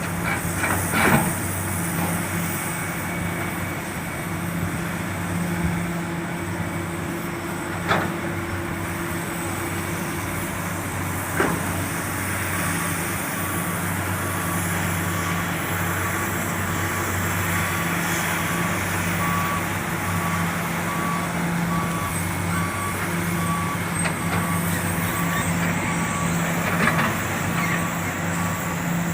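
Heavy diesel engine running steadily, with a few sharp knocks in the first half. About halfway through, a reversing alarm starts beeping about once a second and keeps on.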